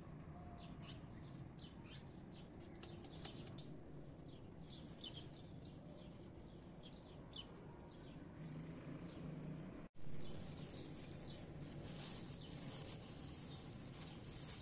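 Small birds chirping: many short, scattered calls over a faint steady low hum. About two-thirds of the way through, the sound drops out for an instant and returns with a short, louder bump.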